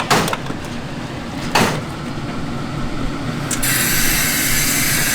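A tap is turned on about three and a half seconds in, and water runs with a steady hiss. Before it, a low machine hum runs, with two knocks.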